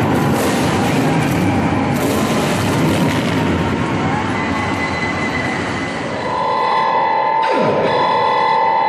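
Cruiser motorcycle engines running with a dense, low rumble. About six seconds in, music with a steady held note and a downward swoop takes over.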